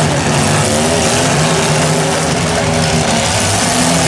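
Several demolition derby compact cars' engines running and revving together under load, their pitches rising and falling as the cars push and maneuver on dirt.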